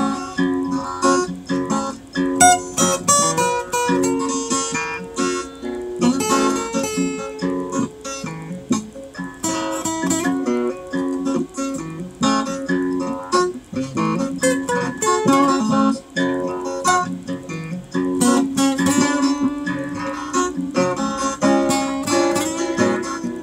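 Acoustic guitar being played: an instrumental tune of plucked notes and strummed chords in a steady rhythm.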